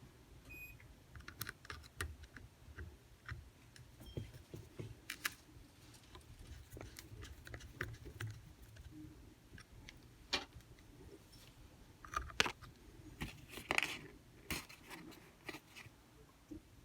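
Scattered light clicks and taps of a small screwdriver and small metal parts of a spinning reel's bail arm being handled, a few sharper clicks about two-thirds of the way through.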